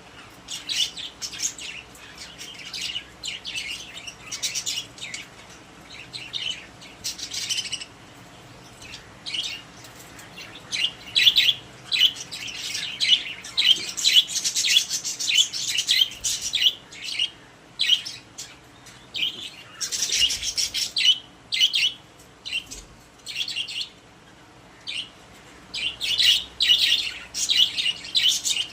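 Pet budgerigars chirping: many quick high chirps in busy bursts, with short lulls between them.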